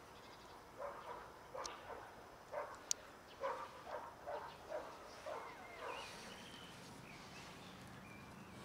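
A dog barking: a run of about ten short barks, a few each second, with one sharp click about three seconds in.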